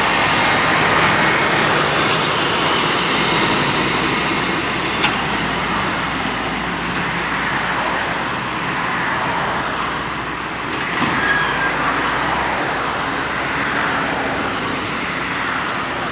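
Doosan DX140W wheeled excavator's diesel engine running steadily under a wash of road-traffic noise, with a few faint clicks near the middle.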